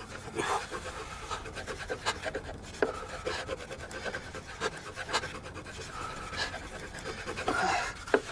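Wooden spindle spun fast between the palms against a wooden board in a hand-drill attempt to light a fire by friction: rapid scratchy rubbing of wood on wood, with heavy strained breathing.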